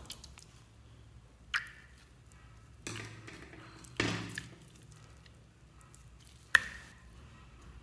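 Squishy stress ball squeezed open, its green glitter goo plopping out onto slime. There are four short wet squelches and pops over a quiet background.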